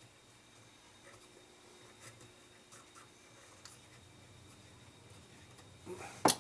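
Faint scratching and light ticks of small clock-movement parts being cleaned by hand on the bench, ending about six seconds in with a single sharp click.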